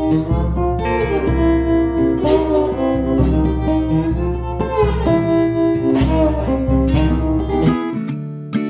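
Instrumental song intro on guitar over deep bass notes, which drop out near the end.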